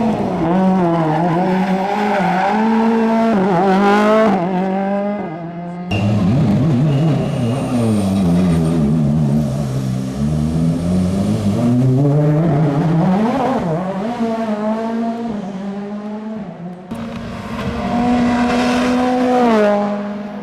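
Ford Fiesta RRC rally car's turbocharged 1.6-litre four-cylinder engine revving hard, its pitch climbing and dropping through repeated gear changes. The sound breaks off and starts again abruptly three times, at about 4, 6 and 17 seconds.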